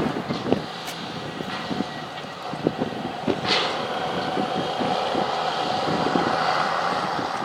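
Heavy diesel machinery running and working, with scattered clanks and knocks. The engine note builds louder from about halfway, and a short hiss comes about three and a half seconds in.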